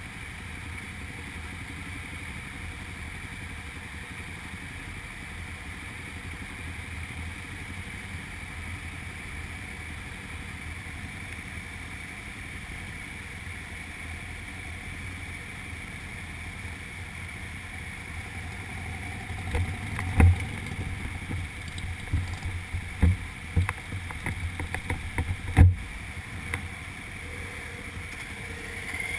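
Motorcycle engine running at low speed, heard muffled through the camera housing as a steady hum. A series of sharp knocks and thumps comes about two-thirds of the way through.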